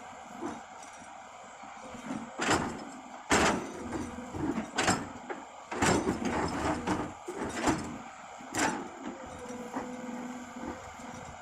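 Komatsu PC200 excavator's diesel engine running steadily, with a string of loud clanks and scrapes from the bucket and its load for several seconds in the middle.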